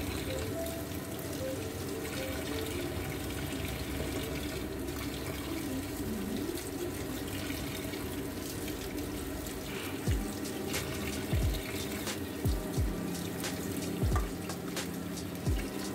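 Tap water running steadily into a sink as chicken is washed under it. Background music joins about ten seconds in, with deep bass notes that drop in pitch.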